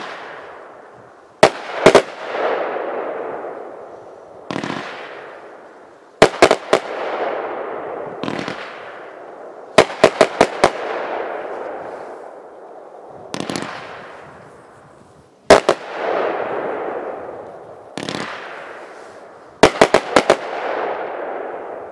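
A 500-gram firework cake firing charcoal palm shells. Every four to five seconds a softer thump is followed, about a second and a half later, by a quick cluster of sharp bangs as the shells break. Each cluster trails off in a long fading echo.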